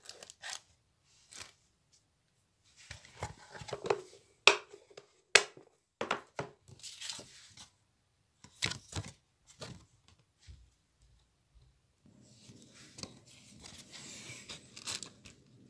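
Hands handling a clear plastic tackle box and its cardboard packaging: scattered sharp clicks and knocks with short bursts of rustling, and a fainter rustle near the end.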